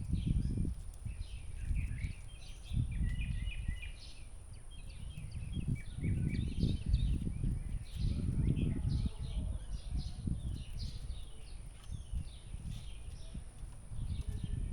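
Several small birds chirping and twittering in quick, overlapping calls, over an irregular, gusty low rumble.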